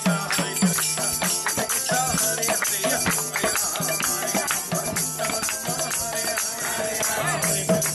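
Kirtan music: a jingle tambourine shaken and struck in a fast, steady rhythm over a harmonium's held chords, with hands clapping along.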